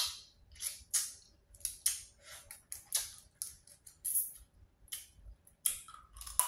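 Close-miked eating sounds of boiled seafood-boil shellfish being eaten: wet mouth smacks, sucking and crisp clicks, about two sharp sounds a second.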